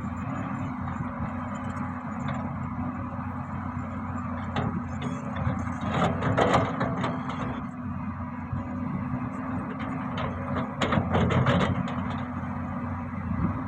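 Diesel engine of a heavy construction machine running steadily, with two louder spells of clattering and scraping, about six seconds in and again about eleven seconds in.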